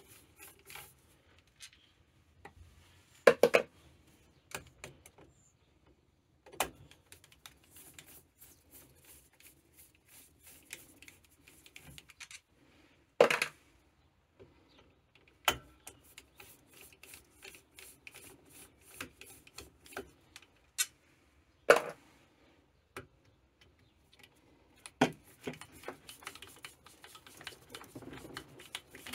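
A ratcheting screwdriver clicking in quick runs as it undoes the screws of a moped engine's clutch side cover. Three loud, sharp metal knocks stand out among the clicks.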